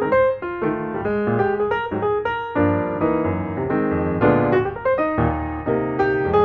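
Background piano music, a melody of separate notes over chords that grow fuller about two and a half seconds in.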